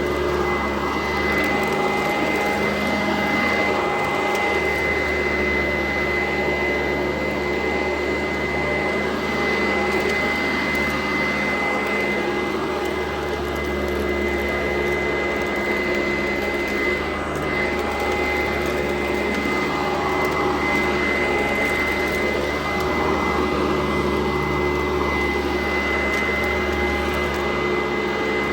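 Sanitaire SC899 upright vacuum cleaner running steadily while vacuuming, its motor giving a constant high whine over the rush of air.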